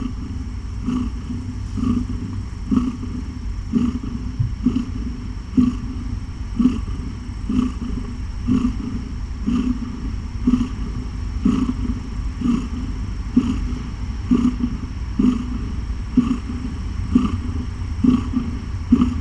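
A pregnant cat's belly heard through a stethoscope: a steady low purring rumble with a regular pulse about once a second.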